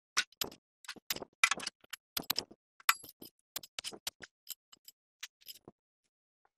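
Metal spade stabbing and scraping into dry soil covered in pine needles: an irregular run of short, sharp strikes, a few a second, that stops shortly before the end.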